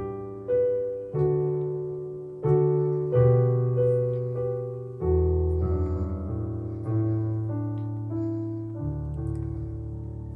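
Piano playing a slow hymn introduction: chords struck one after another, each left to ring and fade, with the last few held longer.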